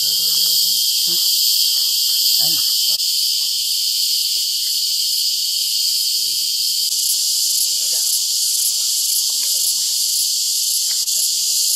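Loud, steady, high-pitched chorus of insects, with a regular pulsing joining in about seven seconds in.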